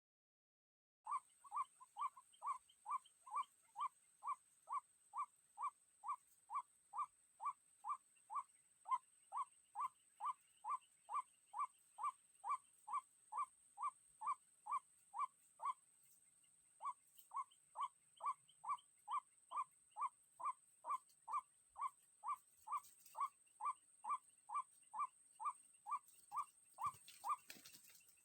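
White-breasted waterhen call played from a lure recording: a steady, evenly spaced series of short falling notes, about two and a half a second, with a brief break about halfway through. A thin steady high tone runs underneath.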